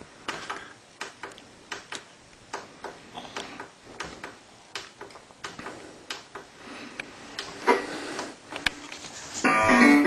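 Irregular light clicks and taps, a few a second, with no voice. Plucked-string music starts about half a second before the end.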